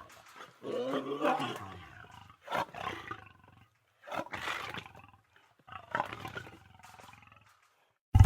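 Lion roaring: one longer, low roar about half a second in, followed by a few shorter grunting calls a second or two apart.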